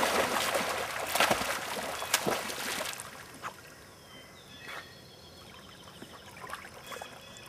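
Dog paddling and splashing through pond water, loud and choppy for about the first three seconds, then fading to faint water sounds as she swims off more calmly.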